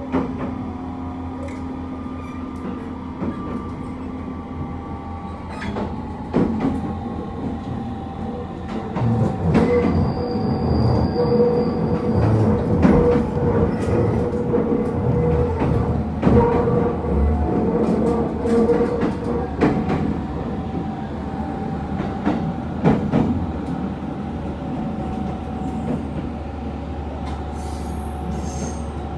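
Running noise inside a JR East HB-E300 series hybrid railcar: a steady rumble and hum from the train with wheels clicking over rail joints at irregular intervals, growing louder for about ten seconds in the middle.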